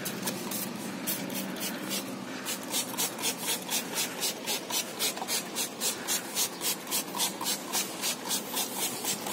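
Rhythmic back-and-forth scrubbing strokes by hand, about four a second, settling into a steady pace a couple of seconds in.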